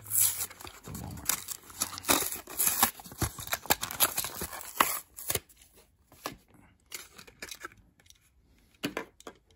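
Clear plastic blister of a Hot Wheels die-cast car package being peeled and torn off its cardboard card: a dense run of crackling and tearing for about five seconds, then sparser clicks and crinkles.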